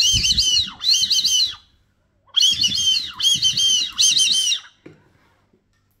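Homemade shotgun-shell brass duck whistle blown to imitate the call of whistling ducks (sirirí): high, warbling whistle calls, each ending in a falling glide, given twice, then three more after a short pause, with breath noise under them.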